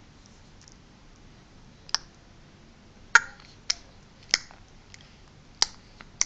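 Six short, sharp clicks at irregular intervals, the loudest about three seconds in: the funny clicking sound a four-month-old is making.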